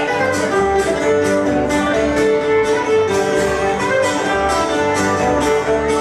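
Live barn dance band music: fiddle melody over guitar, with a steady dance beat.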